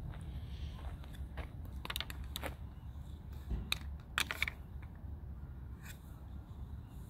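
Light clicks and taps of a small plastic toy knocked against the perforated metal steps of a playground structure, in two short clusters, over a low steady rumble.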